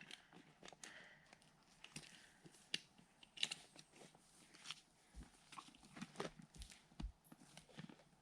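Near silence with faint, scattered clicks and crackles, and a few soft low thumps in the second half.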